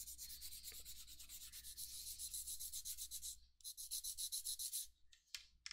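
Sandpaper rubbing back and forth over a cured water-washable resin 3D print, faint quick strokes, smoothing the edges of the part. The strokes pause briefly about three and a half seconds in, start again, then end with a couple of single strokes.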